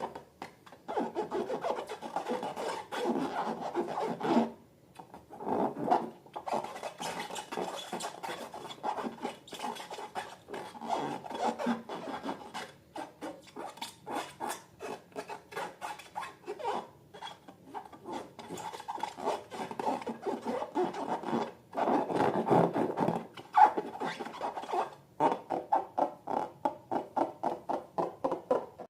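Slime being worked by hand or stirred, making a rapid run of short, wet clicking and scraping strokes, several a second, with a few brief pauses.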